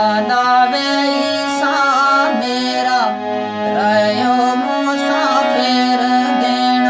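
Instrumental music from a sad song: an ornamented, bending melody over a steady held drone.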